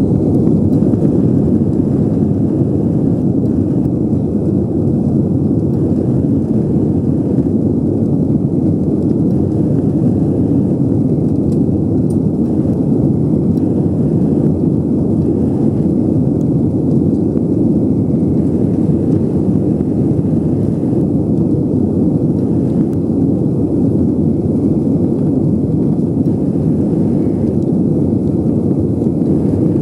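Airbus A320 on its takeoff roll heard from inside the cabin: a loud, steady roar of the engines at takeoff thrust.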